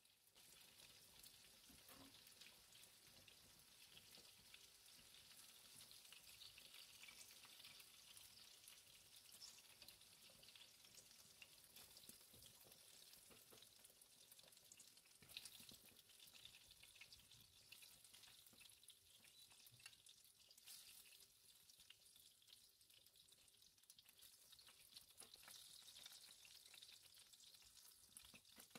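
Faint, steady sizzling and crackling of meat cutlets frying in oil in a pan, with a few light ticks.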